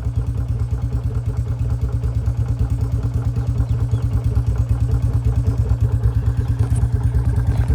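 Two Royal Enfield Bullet single-cylinder motorcycles, a 2019 and a 2024 model, idling together through identical aftermarket shot-bottle C-bend silencers, with a steady, rapid, even exhaust beat.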